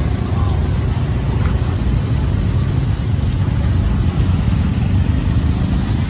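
Street ambience of steady road traffic: a continuous rumble of passing vehicles, with no single event standing out.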